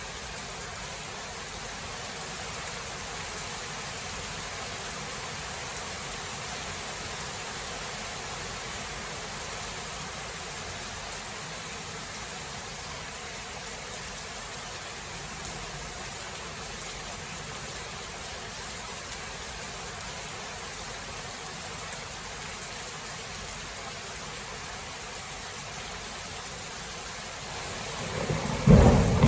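Steady hiss of heavy rain, then a loud low rumble of thunder breaking in near the end.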